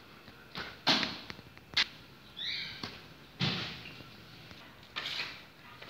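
Irregular short scuffs and knocks, about five of them, most likely footsteps on a tiled floor as the camera holder walks through the room. A couple of brief high chirps sound in the middle.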